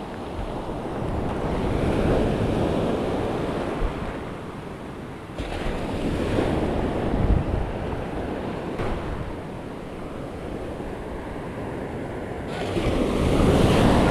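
Surf washing up the beach in repeated surges, swelling louder three times and ebbing between, with wind buffeting the microphone.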